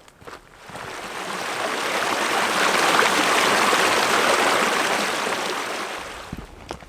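Rushing water of a mountain stream, a steady hiss-like rush that swells up about a second in and fades away again near the end.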